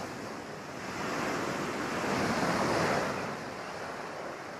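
Rushing jet-engine noise of a Harrier prototype close to the ground, swelling about two to three seconds in and then fading.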